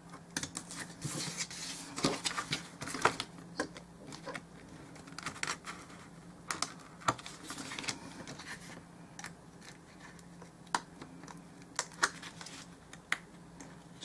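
Craft knife cutting through cardboard on a cutting mat: irregular scratchy strokes of the blade and small sharp clicks and taps, busiest in the first few seconds.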